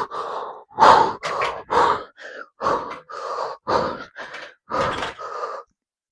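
A man breathing hard in quick, loud, separate breaths, about ten in six seconds. It is the panting of recovery from a hard set of five 100 kg barbell squats.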